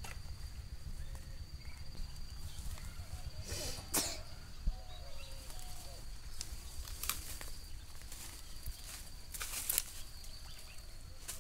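Outdoor ambience with a low rumble, a faint steady high whine and a few light clicks and rustles, with a short cough-like sound about four seconds in.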